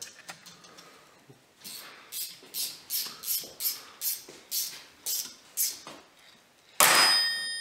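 Metal hand tools at work on a motorcycle engine: a rhythmic run of about a dozen short raspy strokes, two to three a second. Then, about seven seconds in, a sudden metallic clang that rings on.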